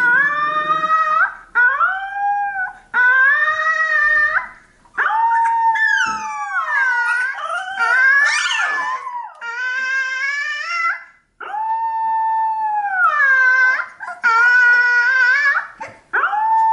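An Alaskan Malamute puppy about two weeks old howling: a run of about nine drawn-out, high howls, each a second or two long. Most hold their pitch and then slide down at the end, with short breaks between them.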